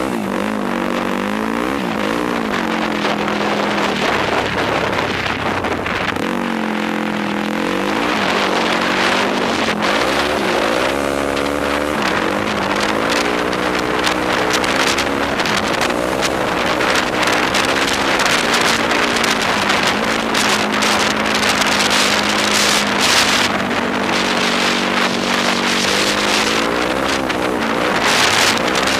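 Yamaha YFZ quad's engine under way, its pitch rising and falling again and again as the throttle is worked and gears change, with wind rushing over the microphone.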